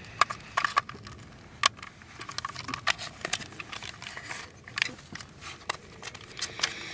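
Plastic and metal clicks and taps from handling a Mamiya RB67 120 film insert while a film spool is fitted into it, a dozen or so sharp clicks at irregular intervals over a faint rustle.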